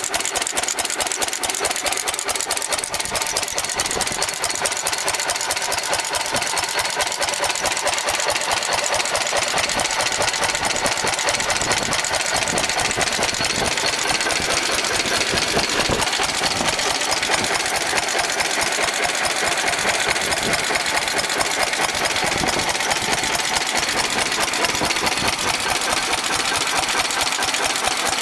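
1924 Hobbs open-crank stationary engine running steadily with a fast, even beat, in good running order.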